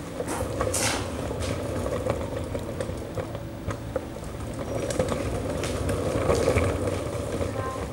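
Camera dolly's wheels rolling along its curved track: a steady rumble with scattered clicks and knocks.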